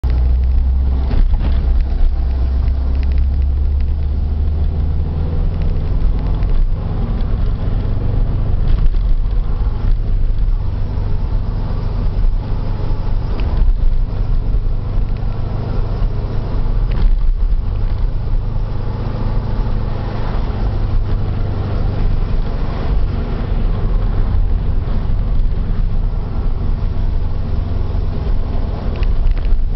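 Subaru Impreza GC8 on the move: a steady low rumble of road and drivetrain noise. A faint droning from a worn front or rear hub bearing lies under it.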